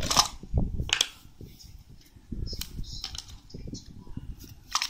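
Cardboard taps, scrapes and rubbing as a small AirPods box is handled and its lid pulled off, with the sharpest clicks near the start and about a second in.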